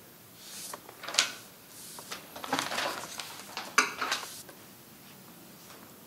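Sheets of paper rustling and being set down on desks as exam papers are handed out, in a run of short rustles with a few sharp taps, dying away near the end.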